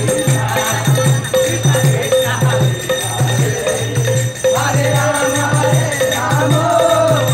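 Street kirtan music: a mridanga drum beating a steady rhythm with hand cymbals ringing along, and voices taking up the chant about four and a half seconds in.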